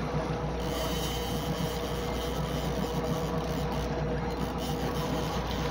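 Boat motor running steadily at trolling speed, a constant engine hum with a steady whine, over the wash of water along the hull.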